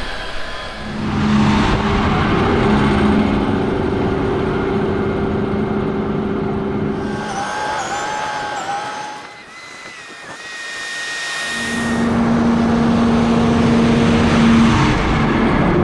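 Diesel engines of two Versatile tractors driving past on gravel. First a Versatile 210 Nemesis runs by with a steady engine note. After a short lull, a Versatile 460 four-wheel-drive tractor comes up and passes close, getting louder near the end.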